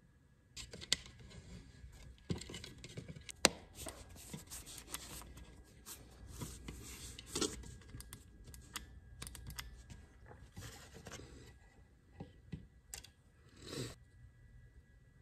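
Faint handling noises of small wires being worked against a wooden frame: scattered clicks, rustles and scrapes, with two sharper clicks about one and three and a half seconds in and a short swish near the end.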